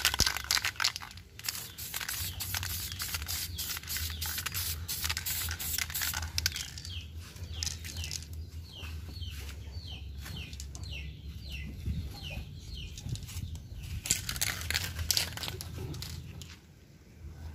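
An aerosol clear-coat spray paint can hissing in quick bursts at the start and again about 15 seconds in. In between, birds call in short falling chirps, about two a second.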